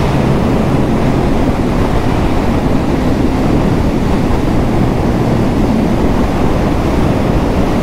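Steady wind roar on the microphone of a moving motorcycle, with the Yamaha MT-09's inline three-cylinder engine running underneath at an even cruising speed.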